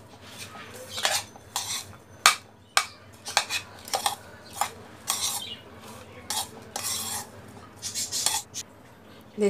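A spoon stirring thick semolina batter with chopped vegetables in a bowl, making irregular clinks and scrapes against the bowl. The sharpest knock comes a little over two seconds in.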